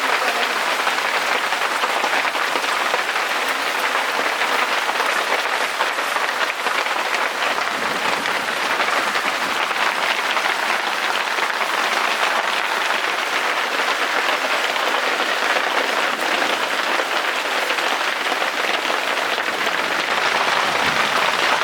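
Rain mixed with fine hail falling, a dense, steady hiss that does not let up.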